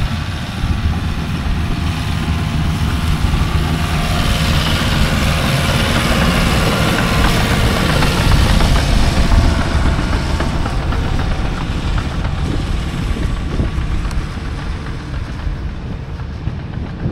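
A vehicle engine running, with a steady low rumble that grows a little louder in the middle and eases off near the end.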